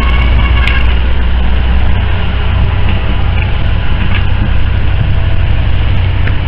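Fishing boat's engine running steadily, heard inside the wheelhouse as a loud low drone with a noisy hiss above it; the deepest part of the hum eases about two seconds in.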